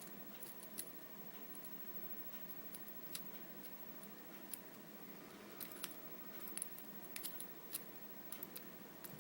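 Faint, irregular metallic clicks and ticks of a lock pick working the pin tumblers of a Brady by Abus lockout-tagout padlock under a tension wrench, coming more often in the second half.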